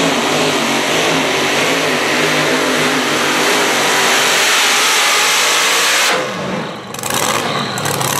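Supercharged mini rod pulling tractor's engine running flat out under load as it drags the weight sled. About six seconds in the throttle is cut and the sound dips sharply, then settles to a lower running note as the pull ends.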